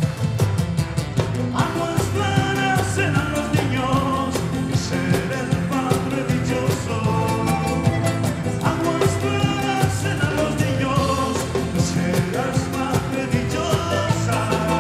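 Live Andean tinku music played by a folk-rock band: drum kit with a steady beat, electric bass and strummed charangos and guitars under a high melody line. The full band comes in loudly at once at the start.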